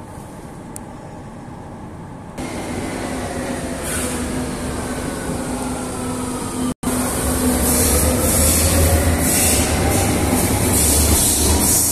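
Berlin U-Bahn train running in an underground station. Its electric motors whine, falling in pitch as it slows. After a sudden break about seven seconds in, the sound is louder, with a deep rumble and a whine rising in pitch as a train gets under way.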